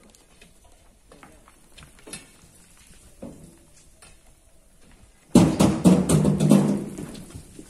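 Rocks and earth falling down a quarry wall: a sudden crash about five seconds in, a clatter of many impacts with a low rumble that dies away over a second or two, after a few faint scattered knocks.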